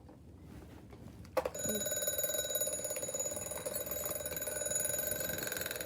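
A click, then a broken alarm clock's electronic alarm starts about a second and a half in and sounds without a break, a steady high-pitched tone. The faulty clock sets its alarm off as soon as the battery is in.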